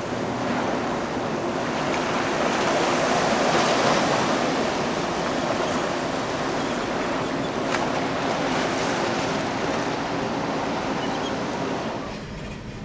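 Sea waves washing against a rocky shoreline, with wind on the microphone; the wash swells about four seconds in and eases off near the end.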